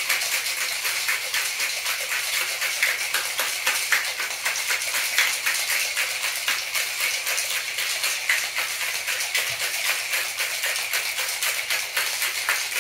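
Ice cubes rattling inside a cocktail shaker shaken hard and continuously, a fast, steady clatter of many small knocks.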